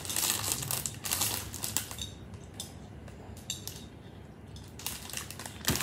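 Eating utensils clinking and scraping against bowls and plates in quick clusters, then scattered single clicks, with a louder knock near the end.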